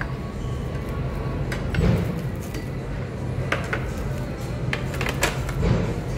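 Steady background noise of a crowded dining room, with a few light clinks of bowls and utensils at the table.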